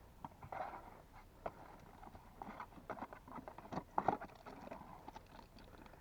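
The cardboard box of a new spin-on oil filter being opened by hand and the filter taken out: scattered light clicks, taps and short rustles.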